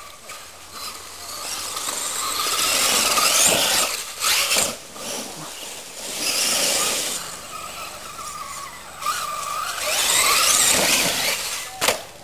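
RC monster truck's motor whining as it is driven hard over dirt, rising and falling in three bursts of throttle over a hiss of tyres and flung dirt, with a few sharp knocks about four seconds in and near the end.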